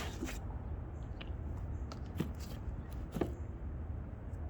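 Light rustling and a few short clicks of packaging and parts being handled as an intake kit is unpacked from its box, over a steady low hum.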